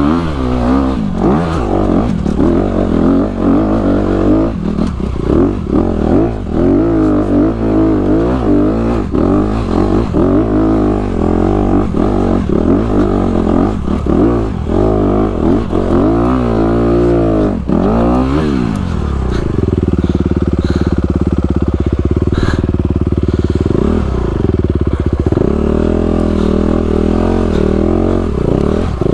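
Honda dirt bike engine revving up and dropping back again and again under hard throttle while climbing a steep, rough hill, then settling about two-thirds of the way through into a steady, even running note.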